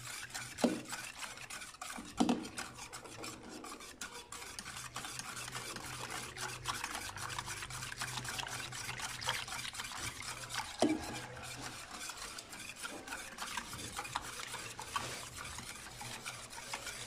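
Hand wire whisk beating a thin semolina, starch and milk-powder mixture in a metal pot: a steady, rapid swishing and light scraping of the wires, with a few louder knocks against the pot near the start and again about eleven seconds in. The whisking is dissolving the dry ingredients before the pot goes on the heat.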